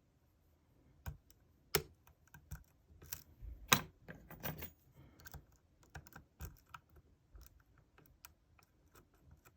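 Lock pick and tension wrench working in a Yale euro cylinder's keyway during pin picking: irregular small metallic clicks and taps, starting about a second in.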